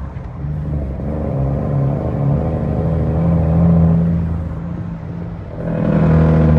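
Cummins M11 inline-six diesel of an International 9200 truck running under load, heard from inside the cab. The engine note sags right at the start and again about five seconds in, as the throttle comes off for gear changes, then picks back up.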